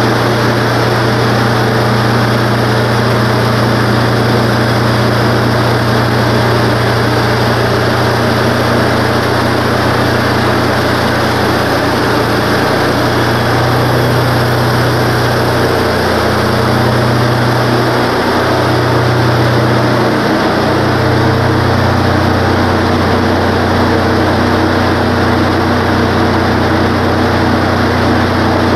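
Wood-Mizer LT15 portable bandsaw mill's gas engine running steadily while its band blade saws through a pine log. The engine pitch dips briefly a few times about halfway through.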